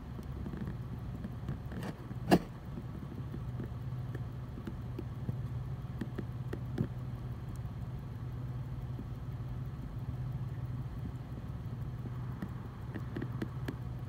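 A steady low hum, like a motor or machine running, with one sharp click about two seconds in and a few faint ticks.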